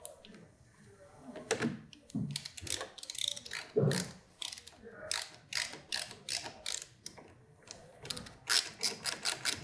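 Ratcheting screwdriver clicking as it turns the screws of a motorcycle's handlebar switch housing. The clicks come in short irregular runs, then a quick steady string of them near the end.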